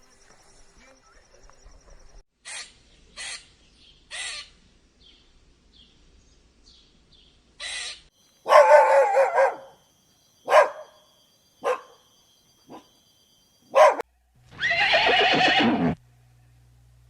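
A series of separate animal calls, several short and faint at first, then louder ones; the two loudest each last over a second, one about halfway through and one near the end that falls in pitch.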